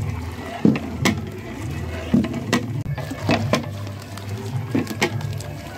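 Liquid being poured into a large aluminium pot of steaming milk, over a steady low rumble, with sharp metal clinks and knocks of a ladle against the pot every half second to a second.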